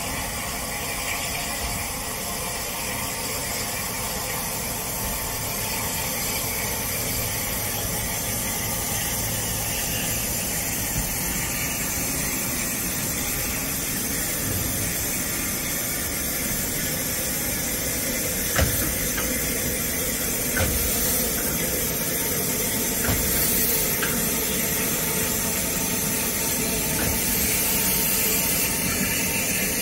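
Steam train running: a steady rushing hiss and rumble, with a few sharp knocks in the second half.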